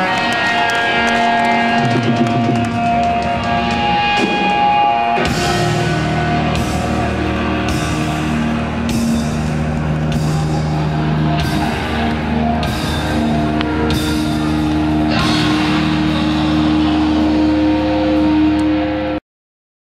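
Hardcore punk band playing live through a PA: electric guitar ringing out alone for about five seconds, then the full band comes in with drums and crashing cymbals about once a second. The sound cuts off suddenly near the end.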